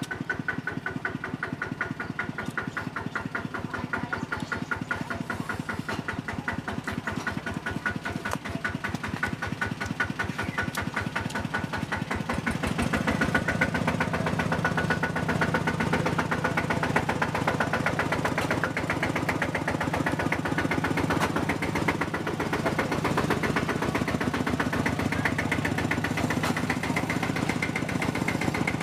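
A motor running steadily with a fast, even pulse, growing louder about halfway through.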